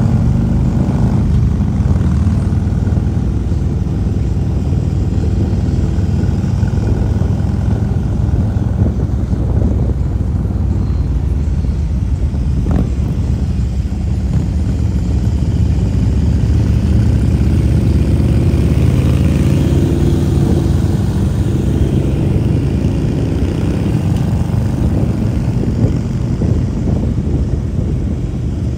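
Harley-Davidson Road King's V-twin engine running steadily while riding at road speed, with other motorcycles in the group close by.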